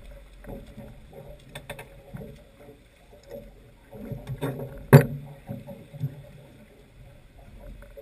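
A small hooked fish being swung aboard and flapping on a boat's deck: scattered light knocks and thumps, with one sharp, loud bang about five seconds in, over a faint steady hum.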